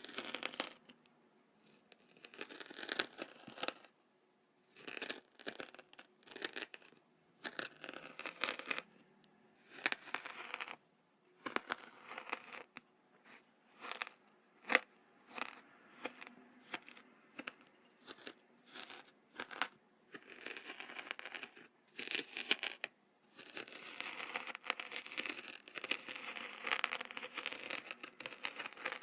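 Kinetic sand being handled close to the microphone: a string of short, grainy bursts of noise with quiet gaps between them, coming close together in the last several seconds.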